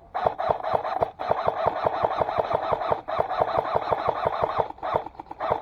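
Airsoft gun firing long full-auto bursts: a rapid, even mechanical rattle with a whine in each cycle, broken by short pauses about a second in, about three seconds in and near the end.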